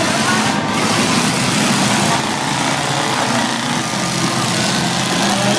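Demolition derby cars' engines running together in a loud, steady mass of engine noise.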